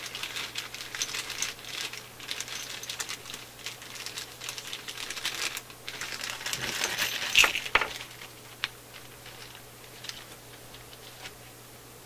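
Small metal screws clinking and rattling in a clear plastic bag as it is handled, with the bag crinkling. The sharpest clinks come a little past the middle, and after that only a few clicks are left.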